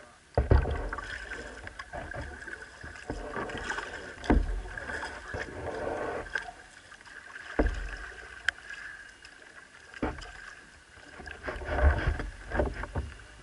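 Water sloshing and splashing around a plastic kayak bow as it pushes a blue whale-shaped kids' ride boat across a lake. About six dull, irregularly spaced thumps sound over it, as the hulls knock together and the water slaps the bow.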